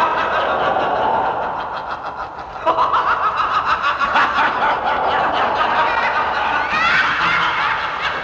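Several voices snickering and laughing, layered over one another. It gets louder about two and a half seconds in.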